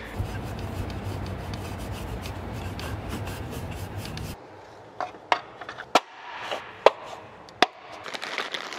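A steady even background noise cuts off about four seconds in. After it, a cloth rag rubs over the exposed cylinder head and camshafts of an engine, with several sharp metallic clicks.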